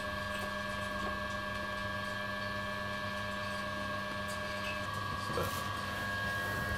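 SOLARFOCUS Therminator II boiler's pellet feed auger motor running as it empties the auger of pellets, a steady mechanical hum whose tone changes about five seconds in.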